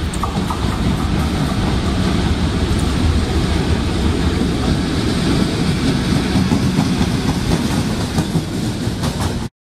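FS E655 electric locomotive hauling a freight train past at close range: a steady, heavy rumble with a few sharp wheel clacks. It cuts off suddenly near the end.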